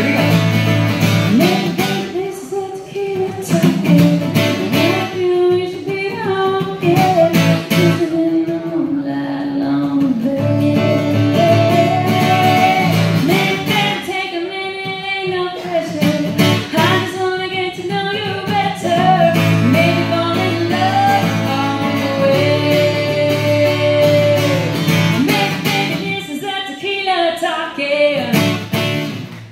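A woman singing a country song over a strummed acoustic guitar, played live through a PA.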